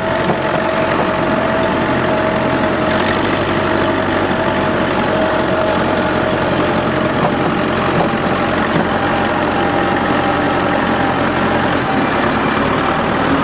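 Farm tractor engine running steadily, with a steady hum held at one pitch over the engine noise.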